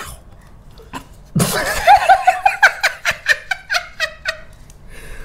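A man and a woman laughing hard together. The laughter breaks out about a second and a half in as a run of quick, pulsing laughs and dies away after about three seconds.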